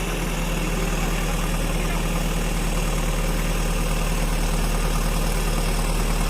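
A heavy diesel engine idling steadily, an even low drone.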